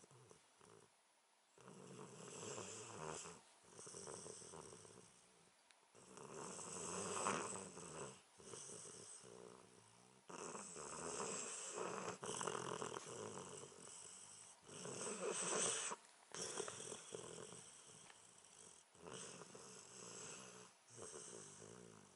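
Snoring: about ten snore breaths, each one to three seconds long, following one after another with short pauses between them.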